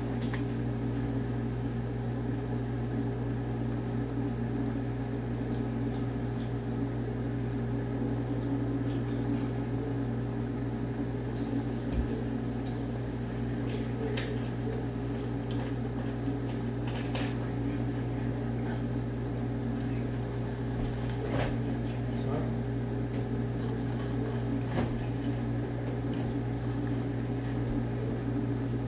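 A steady low mechanical hum, with a few scattered light knocks of a knife on a wooden cutting board as raw chicken breasts are sliced.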